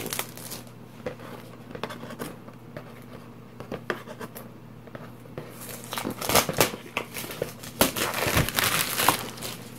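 Plastic shrink-wrap being slit and peeled off a game box, crinkling and crackling: scattered crackles at first, then a dense run of loud crinkling over the last four seconds.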